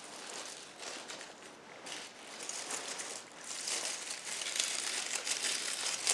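Dry leaves and twigs rustling and crackling under hands working into them, louder from about halfway through.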